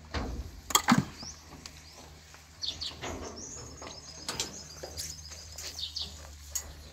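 Small birds chirping, with short high calls scattered throughout, over a low steady hum; a few loud knocks about a second in.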